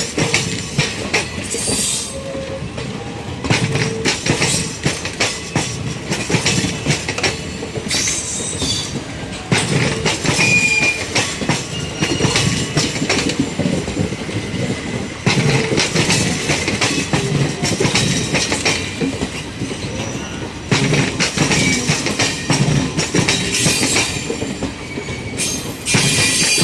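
Passenger train running on the track: coach wheels clattering over rail joints in an irregular rhythm, with brief high wheel squeals now and then.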